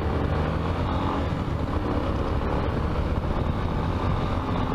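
Yamaha XTZ Ténéré 250's single-cylinder engine running steadily under way, with road noise.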